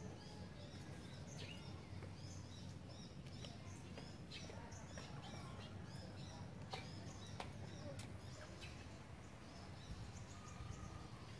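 Small birds chirping on and off over a steady low hum, with a few faint clicks.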